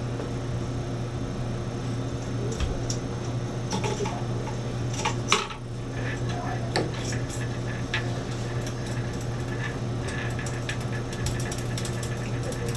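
Scattered small metallic clicks and taps as the microscopy base and its screws are fitted onto the rheometer, with one sharper knock about five seconds in, over a steady low hum.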